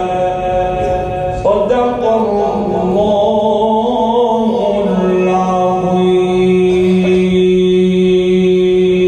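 A single male voice chanting Quran recitation in the melodic tajweed style, drawing out vowels in slow ornamental turns. The voice then holds one long steady note for about the last four seconds, which stops at the end.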